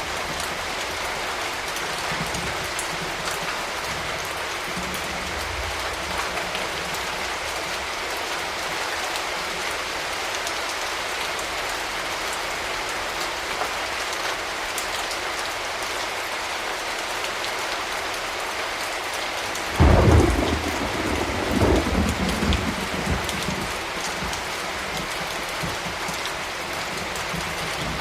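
Steady rain falling, with a sudden loud clap of thunder about two-thirds of the way in that rumbles on in a second swell for a few seconds before the rain is left alone.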